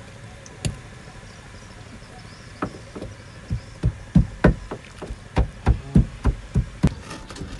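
Pestle pounding in a mortar: a single knock, then from a few seconds in a steady run of heavy, dull blows, about three a second.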